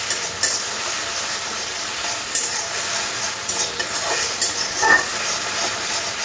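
Onion paste frying in hot oil in a metal kadai, sizzling steadily, while a metal spatula stirs it and scrapes and taps against the pan several times.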